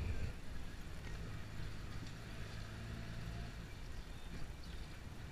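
A taxi's engine running and road rumble, heard inside the cabin of the moving car, with a thump at the start.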